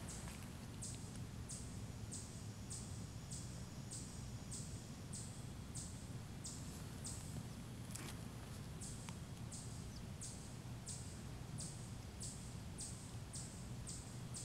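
Short high-pitched chirps from a small calling animal, repeated evenly about twice a second, over a steady low outdoor rumble.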